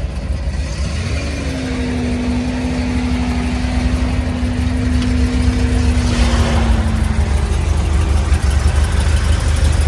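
Porsche 912's air-cooled flat-four engine idling with a steady deep rumble. A steady whine comes in about a second in and fades out around seven seconds.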